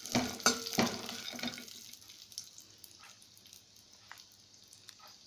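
Cashew and almond pieces being stirred in ghee in a steel kadhai: scraping and clinking strokes for about the first second and a half. After that, only a faint sizzle with a few light ticks as the nuts roast on low flame.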